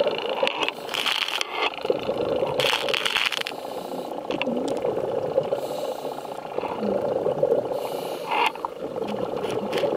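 Underwater sound picked up by a diver's camera: a steady hum with two rushing bursts of a diver's breathing bubbles in the first few seconds, and scattered clicks.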